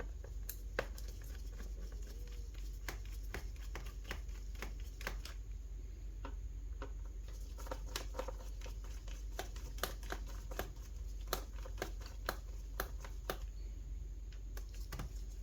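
Small screwdriver undoing screws on the underside of a Lenovo ThinkPad P16 Gen 2 laptop: scattered light clicks and ticks of the bit and of hands handling the plastic case, over a steady low hum.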